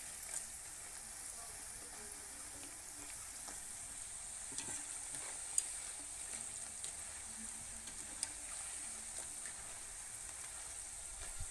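Onion ragi pakoda fritters deep-frying in hot oil: a steady high sizzle, the fritters well cooked. A few light clicks scattered through it as a wire spider skimmer stirs them against the aluminium kadai.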